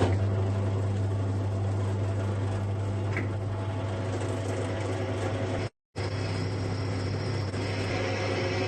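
An electric machine or power tool running with a steady low hum, cutting out for a moment about six seconds in and then carrying on.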